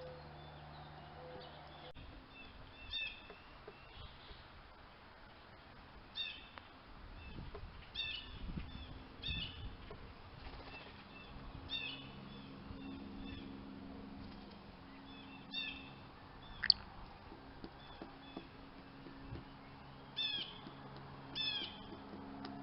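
Wild birds calling, with short chirps repeated every second or two, and one sharp click about two-thirds of the way through.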